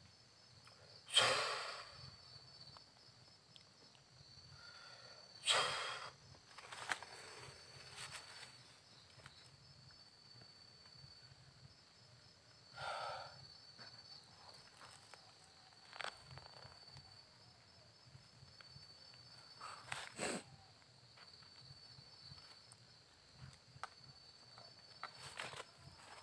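Crickets trilling steadily at night, with several short hissing noises under a second long; the loudest come about a second in and about five and a half seconds in, and others come near the middle and two-thirds of the way through.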